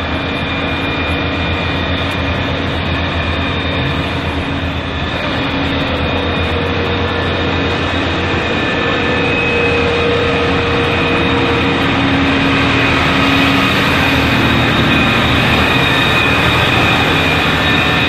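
Loud, steady mechanical din of firefighting equipment at a fire that is still not fully out: a constant rumble with several steady tones over it, growing a little louder about twelve seconds in.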